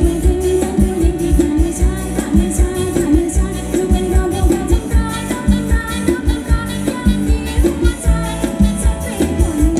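Live Thai ramwong dance band playing with a steady, driving drum beat, a singer's voice over it for about the first half, then held instrumental notes before the voice returns near the end.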